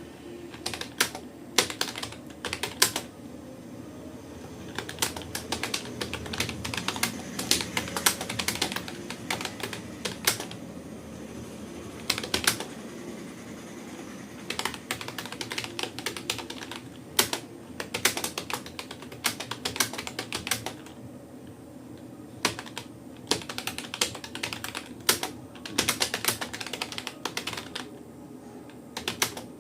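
Typing on a Rapoo computer keyboard: irregular runs of key clicks broken by short pauses, over a steady low hum.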